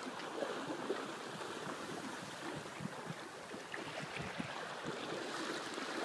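Water washing and splashing along a small sailboat's hull: a steady hiss with fine, crackling splashes and little low rumble.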